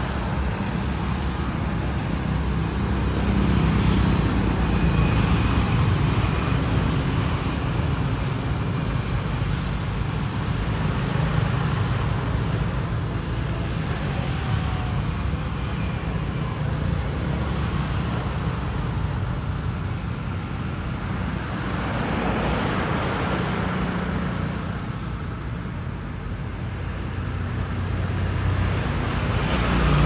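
Steady rumble of road traffic, with a vehicle passing by about two-thirds of the way through.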